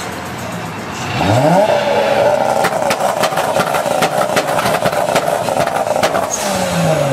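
Car engine revving up hard while the tyres spin and squeal in a burnout: a held, wavering squeal with a rapid run of sharp cracks in the middle. The revs drop away near the end.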